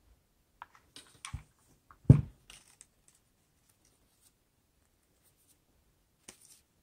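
A hot glue gun set down on a table with a single dull thud about two seconds in, among light clicks and rustling of construction paper as a paper leaf is handled and pressed onto a stem.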